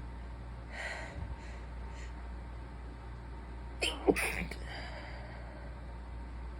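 A sick person's stifled sneeze about four seconds in, sharp and brief with a squeaky voiced catch, trailing off into a breathy exhale. Before it come a couple of short catching breaths as the sneeze builds.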